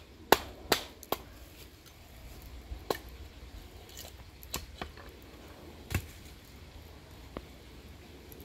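Small hatchet splitting wood into blocks on a log chopping block: three quick chops in the first second or so, then a few scattered, lighter knocks of the blade and wood.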